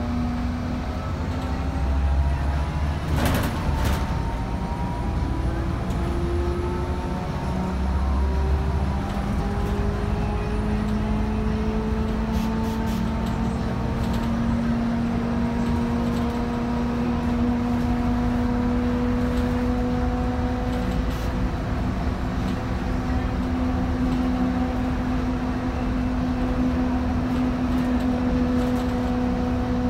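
City bus heard from inside the cabin, pulling away and gathering speed: a drivetrain whine climbs steadily in pitch, then holds level as the bus cruises, over a constant low running rumble. A couple of sharp knocks sound about three seconds in.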